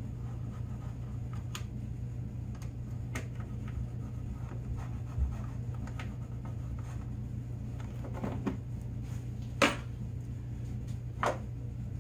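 Light clicks and knocks of hard plastic as jerry-can holder brackets are handled and lifted off a snowmobile tunnel, over a steady low hum. The two sharpest knocks come near the end.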